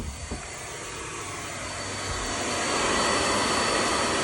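A passing vehicle: a rushing engine noise that swells to a peak about three seconds in, then begins to fade.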